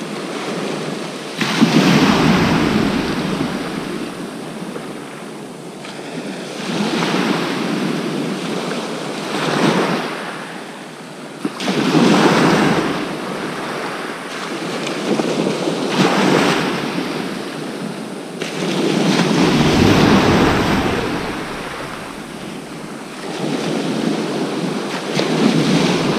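Sea waves breaking and washing up a shingle beach, swelling and fading every few seconds, with wind buffeting the microphone.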